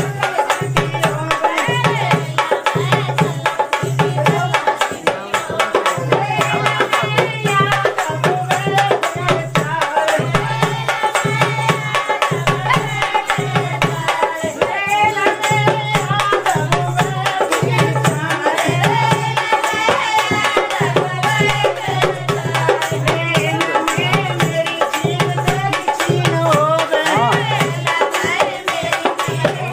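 Indian folk song with a voice singing over a steady low drum beat, a little over one beat a second.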